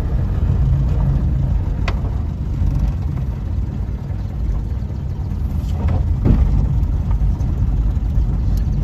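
A 1960s Austin Cambridge being driven, its engine and road noise heard from inside the cabin as a steady low rumble.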